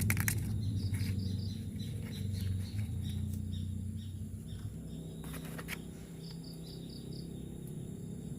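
Birds chirping faintly in short quick runs of about five notes, over a low steady hum that slowly fades.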